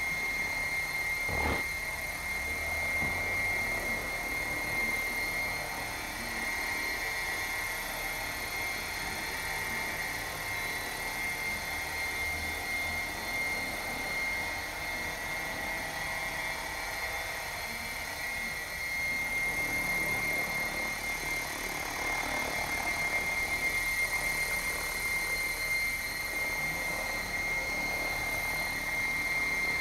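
Electric 700-size RC helicopter hovering at low head speed (around 1100 rpm), with a steady high whine over the rotor's whoosh. There is a single brief thump about a second and a half in.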